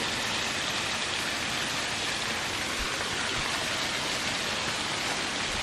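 Small waterfall splashing over rocks: a steady, even rush of falling water with a hissy, high-pitched edge.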